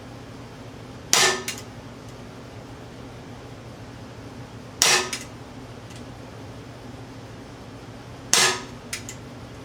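Three shots from an Umarex Glock 17 Gen 3 CO2 blowback BB pistol, spaced about three and a half seconds apart. Each is a sharp crack, followed a fraction of a second later by a lighter click. A steady low hum runs underneath.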